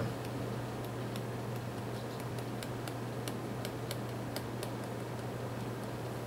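Irregular light clicks, a few each second, over a steady low hum.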